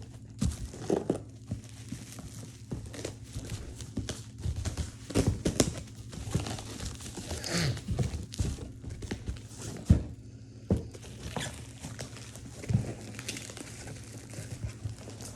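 Gift packaging being handled and unwrapped: paper or plastic crinkling and tearing, with scattered knocks and taps.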